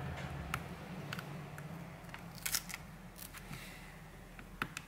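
Scattered sharp clicks and crackles as a pry tool works the cracked glass-and-display panel of a Samsung Galaxy Tab A 10.1 loose from its adhesive, with a quick cluster of clicks a little past the middle.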